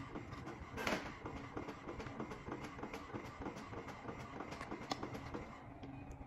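HP inkjet printer printing a photo: a continuous mechanical clatter of small clicks and rattles from the paper feed and print carriage, with a short louder rush about a second in and a sharp click near the end.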